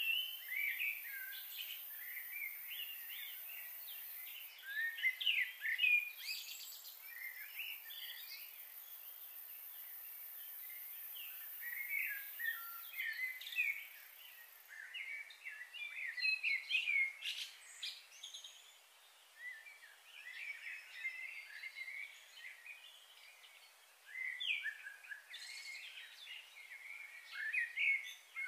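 Small birds chirping and twittering in quick, irregular bursts, over a thin high hiss that stops about halfway through.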